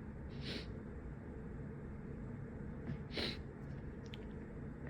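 A person taking two quick, hissing breaths through the nose: a faint one about half a second in and a louder one about three seconds in. This is the build-up to a sneeze that she is trying to hold back.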